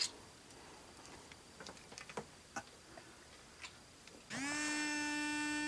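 Scattered faint clicks of a phone being dialled, then a single steady buzzy ringing tone of about a second and a half near the end: the call ringing through.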